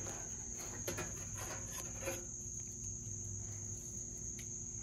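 Steady high-pitched chorus of crickets, with a few faint clicks of a screwdriver and metal as a burner is unscrewed from an old Coleman propane camp stove.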